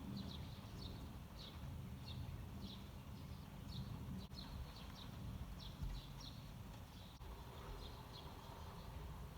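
Eurasian tree sparrows chirping: short, high chirps repeated irregularly, about one or two a second, over a faint steady low rumble.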